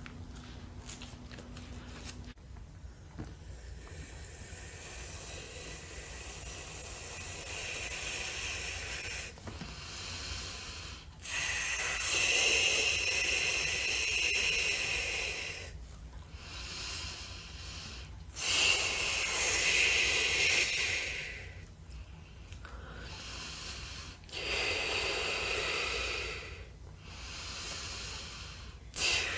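Breath blown through chewing gum to inflate a large bubble-gum bubble: long hissing exhales of one to four seconds each, about eight of them with short pauses between.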